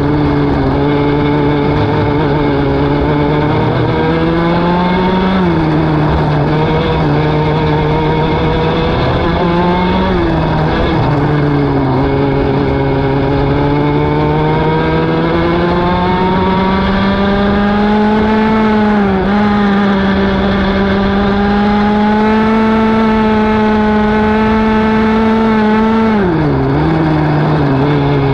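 Racing kart's single-cylinder engine at race pace, its pitch climbing slowly along each straight and dropping sharply every few seconds as the kart slows for a corner.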